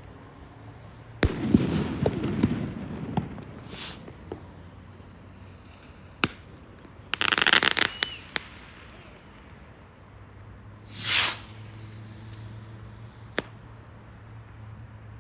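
Fireworks going off: a sharp bang about a second in followed by a couple of seconds of crackling, a dense burst of crackles about seven seconds in, another burst around eleven seconds, and a single crack near the end. A low steady hum runs under the last few seconds.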